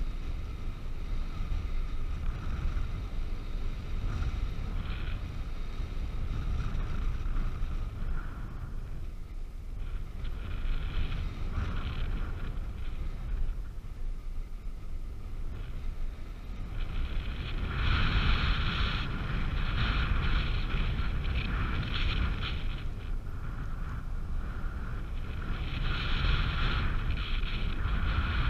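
Wind rushing over the microphone of a camera carried in paragliding flight: a steady low buffeting with a higher hiss that comes and goes, stronger for several seconds about two-thirds of the way through and again near the end.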